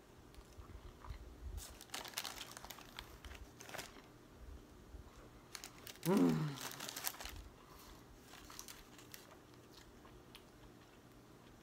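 Eating sounds from a burger meal: paper crinkling, crunching and chewing, with louder rustles at about two to four seconds in. About six seconds in comes a short vocal sound that falls in pitch.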